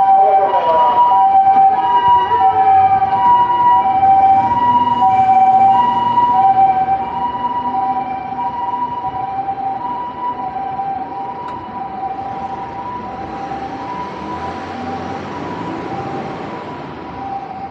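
Two-tone hi-lo emergency siren of a Japanese ambulance, switching steadily back and forth between a higher and a lower pitch. It is loud at first and fades gradually from about seven seconds in, over the rumble of passing traffic.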